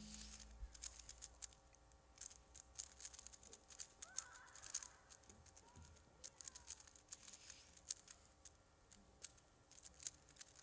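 Rubik's Cubes being turned fast in speed-solving: quiet, rapid, irregular clicking and clacking of the cube layers.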